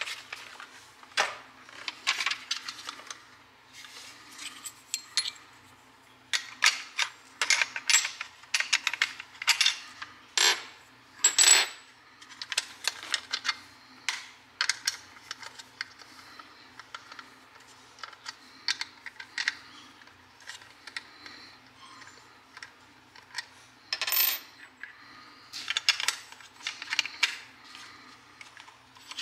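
Irregular metallic clicks and clinks of steel Crosman Powerlet CO2 cartridges being handled and fitted into the open CO2 chamber of a plastic-and-metal BB gun magazine.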